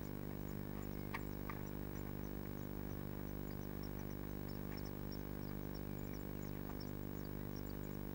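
Faint, high, rapid cheeping of blue tit nestlings begging, over a steady electrical hum. Two soft knocks come a little over a second in.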